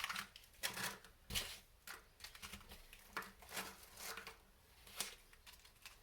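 Light, irregular clicks and rustles of small hardware being handled: M3x6 button-head screws picked out from the kit's parts.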